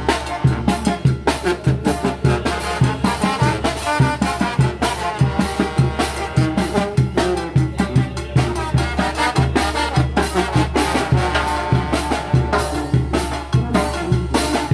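Oaxacan brass band (banda de viento) playing a chilena: brass melody over a steady, driving drum beat.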